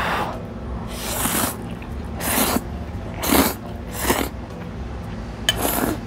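Instant ramen noodles slurped from a small bowl with chopsticks: five short, noisy slurps about a second apart.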